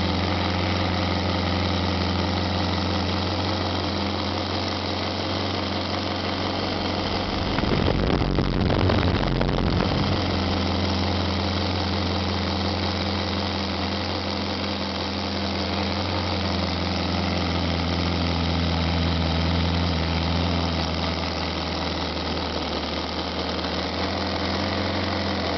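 Nine-cylinder radial engine running steadily at a low idle, with a brief louder, rougher stretch about eight seconds in.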